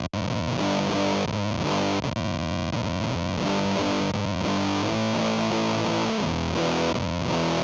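Epiphone SG 400 electric guitar played through a Fuzz Factory fuzz pedal into a clean amp simulation. It plays heavily distorted notes and chords continuously, changing every second or so.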